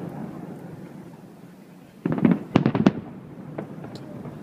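Fireworks going off: a fading rumble, then a quick cluster of sharp bangs and crackles about two seconds in, followed by a couple of fainter pops.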